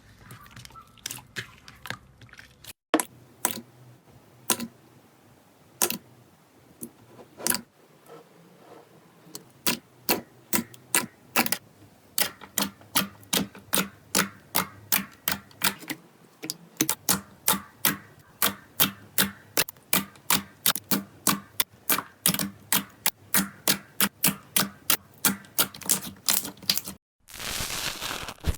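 Slime being pressed and poked, giving sharp clicks and pops. A few come scattered at first, then a steady run of about three a second, and it ends in a dense crackling stretch near the end.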